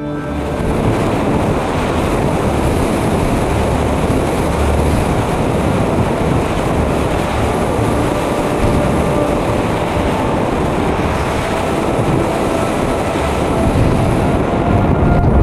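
Onboard audio from a Multiplex Easyglider RC glider in flight: a steady rush of airflow buffeting the onboard camera's microphone, heavy in the low end, with a faint steady whine underneath.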